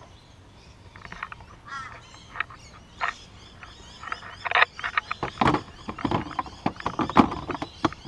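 Sharp plastic clicks and knocks from the removed rear luggage lock trim of a Mk7 VW Golf as it is handled at the open boot, coming thick and fast from about halfway in. A few faint chirps come early on.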